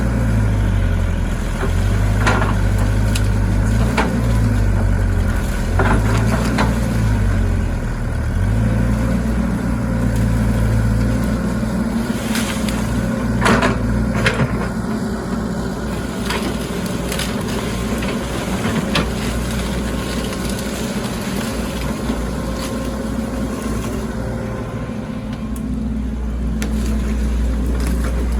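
Excavator's diesel engine running under changing hydraulic load, its pitch stepping up and down repeatedly in the first several seconds, then steadier. A few short knocks and scrapes come through, the loudest a little past the middle.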